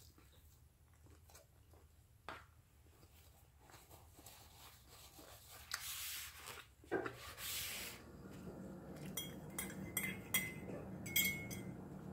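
A paper napkin rustles in two short bursts as hands are wiped, then about five light ringing clinks of tableware on ceramic.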